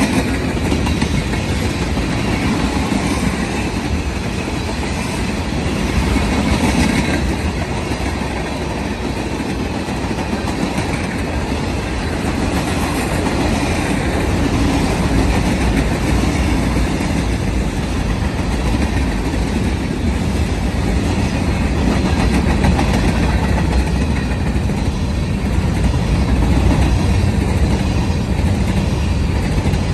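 Freight cars of a CSX manifest train rolling past, a steady, continuous noise of steel wheels on rail.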